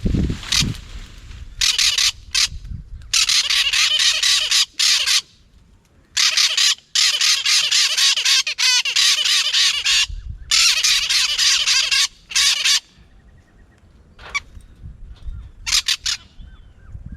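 Parrots giving harsh, rapidly repeated calls in four long bursts of one to four seconds each, then a couple of short calls near the end.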